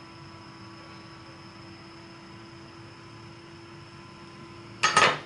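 Steady hum with a faint hiss and a thin steady whine from the soldering bench, typical of a small fan running. Near the end comes a short, loud clatter in two quick peaks, as tools are handled on the bench.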